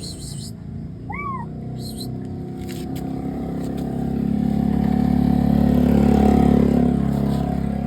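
A motor vehicle's engine and tyres on the road, growing louder to a peak about six seconds in and then easing off, as a car goes by close.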